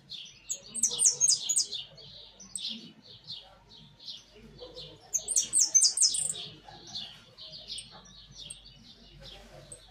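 Saffron finch (jilguero amarillo) chirping: a continuous run of short high notes, with two louder bursts of sharper, higher-pitched notes, about a second in and again around five to six seconds in.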